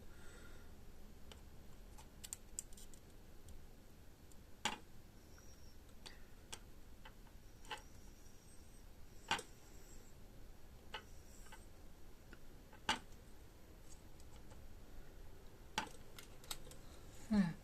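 Faint, scattered clicks and taps of hand-soldering a switch onto a circuit board: small metal tools and component leads knocking on the board and bench. Four louder clicks come a few seconds apart, over a faint steady background hiss.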